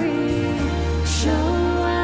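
Live worship band playing with sung lead vocals over electric bass and drums. The bass moves to a lower held note about half a second in, under the sustained, gliding vocal line, with short cymbal hits on the beat.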